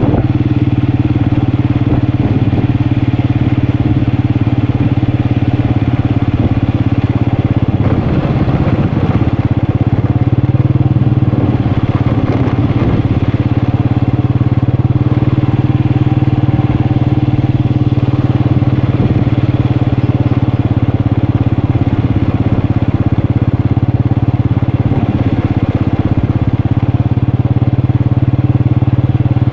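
Motorcycle engine running at a steady speed while riding, its note holding nearly constant. There is a stretch of rattling and clatter about eight to thirteen seconds in.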